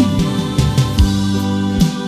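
Music: a romantic grupera song's instrumental, with sustained keyboard chords, a melodic run of notes and a steady beat, no singing.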